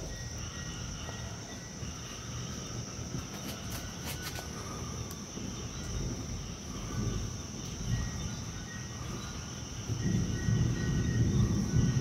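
Night outdoor ambience as a storm approaches: a steady high insect drone with scattered chirping calls, over an uneven low rumble of wind or distant thunder that swells about ten seconds in.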